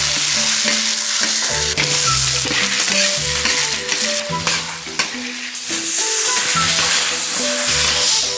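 Food sizzling as it is stir-fried in a hot pan, a dense hiss with a few scraping clicks. Background music with slow, held melody notes plays over it.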